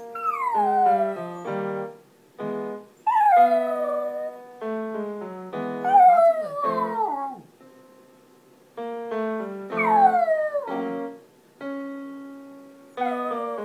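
A small Pomeranian–Chihuahua mix dog howling along to a vocal warm-up recording: about five long falling howls, one every two to four seconds, between piano notes and sustained piano tones.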